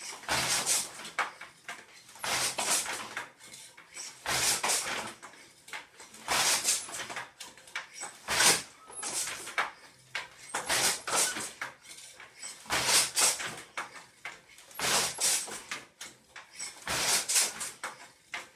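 Schacht Mighty Wolf wooden floor loom being woven on. It makes a regular cycle of wooden knocks and sliding sounds about every two seconds as the shuttle is thrown through the shed and the beater is pulled against the cloth.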